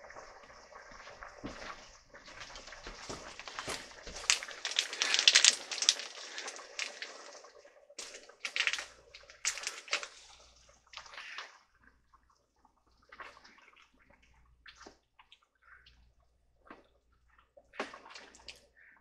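A plastic bag crinkling and liquid splashing as ingredients go into a pot of simmering curry broth, loudest about four to seven seconds in, then a ladle stirring with scattered short knocks against the stainless steel pot.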